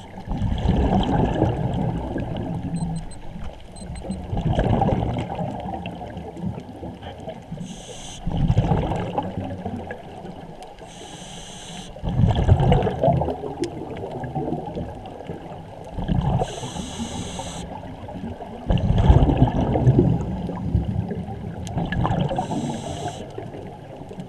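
Scuba regulator breathing heard underwater: a short hiss on each inhale, then a low rush of exhaled bubbles, repeating about every four seconds.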